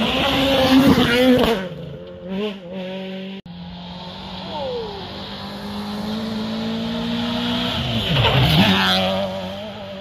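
Rally cars driven hard on a stage: a Peugeot 208 rally car's engine passes close about a second in. After a sudden cut, another rally car's engine grows steadily louder and passes close near the end, its pitch dipping and rising again as it goes by.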